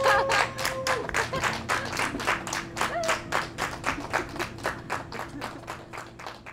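A small group of people clapping their hands, about five claps a second, loudest at the start and dying away toward the end.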